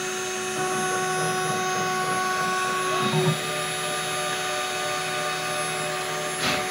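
Home-made CNC milling machine's spindle running steadily, a whine of several fixed pitches over a rushing hiss, as its engraving bit cuts isolation tracks into a copper-clad circuit board. A short burst of noise comes near the end.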